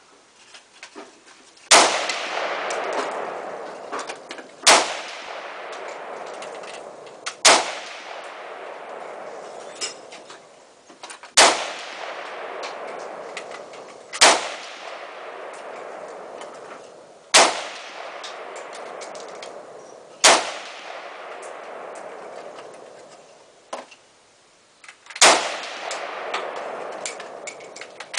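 AK-47 rifle firing 7.62×39 mm rounds, single aimed shots: eight reports about three seconds apart, with a longer pause before the last, and one more right at the end. Each shot is followed by a long fading echo.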